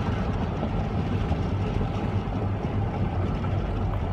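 Strong wind blowing across the microphone: a steady low rumble with a rushing hiss above it.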